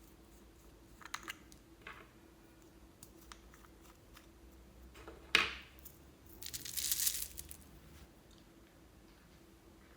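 Close handling of small objects: faint clicks, a sharp snap about five seconds in, then a burst of crinkling or tearing lasting about a second.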